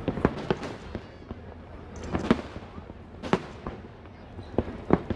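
Fireworks going off: a rapid run of sharp bangs and crackles, with louder single bangs a little over two seconds in, at about three seconds, and near the end.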